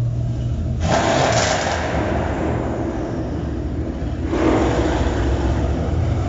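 Performance car engine idling in a concrete parking garage, revved hard twice: about a second in and again about four seconds in, each rev dying back to the idle.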